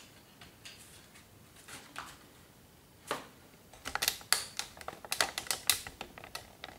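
Hard plastic parts of an action figure clicking and clacking as they are handled: a few light clicks at first, a sharper click about three seconds in, then a quick flurry of sharp clicks from about four seconds in.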